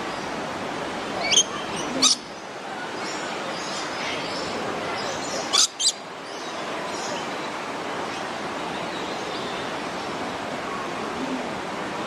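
Lorikeet screeches: four short, shrill calls in two pairs, one pair about a second and a half to two seconds in and the other near six seconds, over a steady background hiss.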